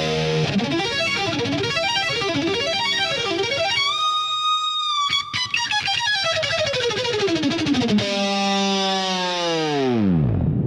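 Instrumental break in a song: an electric guitar solo of sliding notes that swoop up and down, a held high note about four seconds in, and a long downward dive near the end.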